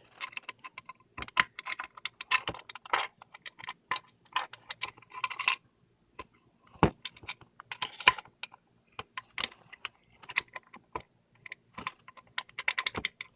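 Irregular clicks and small metallic clinks of steering-wheel hub screws and an Allen wrench being handled, coming in short flurries with brief pauses between.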